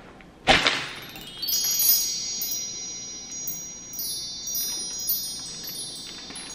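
A short rush of noise, then a cascade of high wind-chime tones entering one after another and ringing on, like an added chime sound effect.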